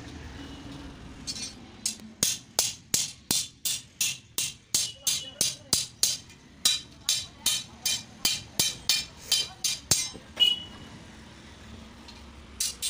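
Hand hammer striking a flat iron bar against a cast-iron bending block, sharp metallic blows with a slight ring at about three a second as the bar is worked into a curve. The blows stop for a moment, then two more come near the end.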